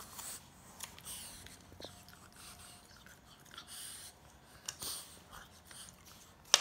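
French bulldog breathing and snuffling noisily in short hissing puffs while mouthing and chewing a ring toy, with a few faint clicks and one sharp knock near the end.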